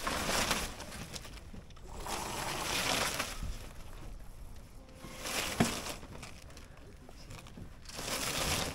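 Junk rig sail being hoisted by hand: the halyard rope running through its blocks in several long hauls, with the battened sail cloth rustling as it rises. A single sharp knock comes about five and a half seconds in.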